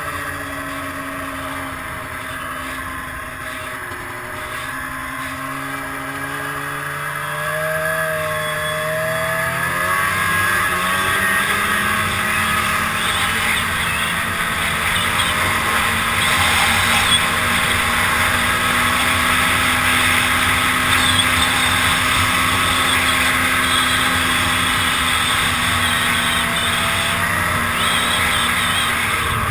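2002 Arctic Cat ZR 800 snowmobile's two-stroke twin engine running under way; its pitch climbs about ten seconds in as the sled speeds up, then holds steady and louder with a rushing hiss.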